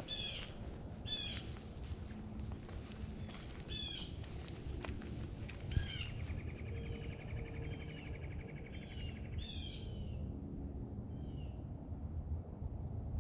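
Wild birds calling: several sharp, down-slurred calls and a long rapid trill about halfway through. A high, thin buzz recurs every few seconds over a steady low rumble.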